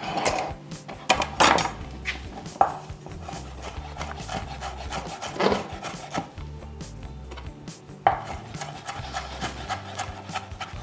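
Chef's knife chopping fresh dill on a wooden cutting board. A few separate knocks come in the first seconds, and a run of quick, light chops starts near the end.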